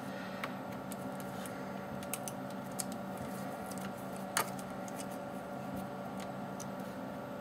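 Small clicks and ticks of a magnetic screwdriver turning a small screw into a laptop's metal base, with one sharper click about four seconds in, over a steady hum.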